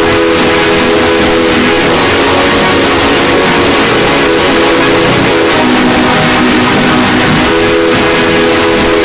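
Very loud, heavily distorted electronic noise with a cluster of steady buzzing tones in it. The tones are strong for the first couple of seconds, sink into the noise, and come back strongly near the end.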